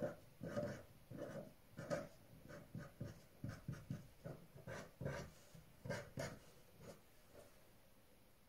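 A red pen drawing on paper: a run of short strokes, several a second, stopping about seven seconds in.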